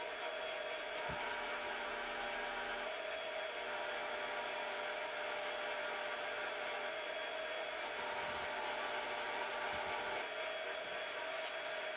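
Grizzly mini lathe running steadily with a constant motor whine, while a hand-held tool rubs against the spinning brass tube in stretches that start and stop a few times.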